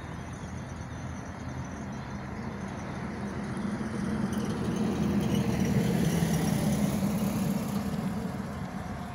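A vehicle passing by, a low rumble that swells past the middle and then fades away.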